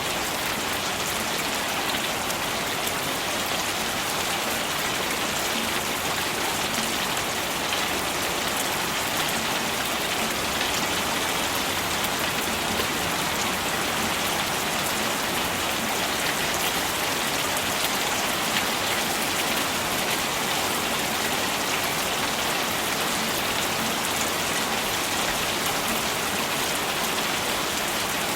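Steady rain falling, a dense even hiss of many fine drop patters on surfaces.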